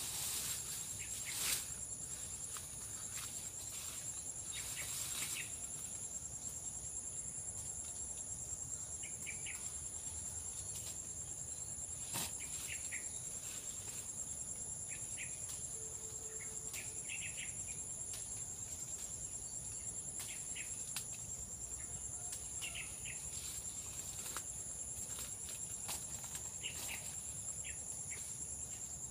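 Insects trilling steadily: two unbroken shrill high tones, with short scattered chirps and a few sharp snaps and rustles, the loudest about a second and a half in.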